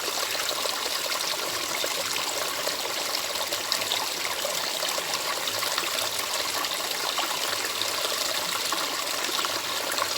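Water of a small stream trickling and splashing steadily, with many small splashes.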